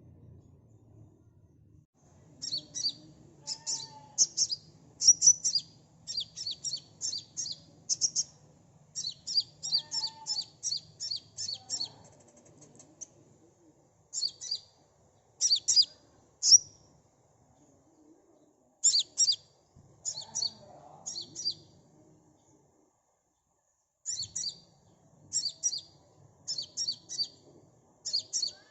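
Sunbird singing: rapid strings of sharp, high-pitched chirping notes, given in runs of several notes with short pauses between runs; the song starts a couple of seconds in.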